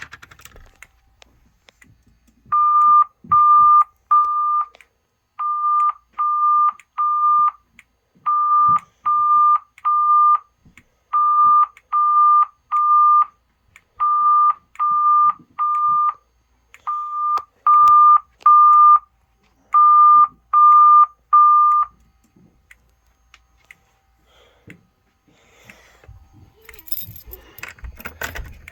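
Fire alarm evacuation tone in the temporal-3 pattern from an EST voice-evacuation system set off by pulling the pull station: three short, steady, mid-pitched beeps, a pause, then three more, seven groups in all. After the tone stops, rattling handling noise starts near the end.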